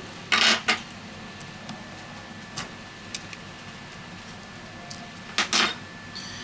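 Hands handling a disassembled smartphone and its small parts on a repair mat: short clatters and clicks, the loudest about half a second in and again about five and a half seconds in, over a steady low hum.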